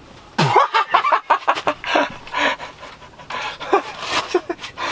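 A man panting: short, irregular breaths with some voiced gasps between them.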